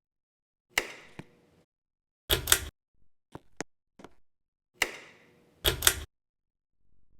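Two sharp knocks, each leaving a brief ringing tone, and each followed about a second and a half later by a short rattling clatter, with a few light ticks in between.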